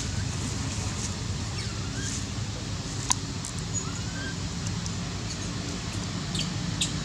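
Steady outdoor background noise with a low hum under it, broken by a few faint short rising chirps and a handful of sharp clicks.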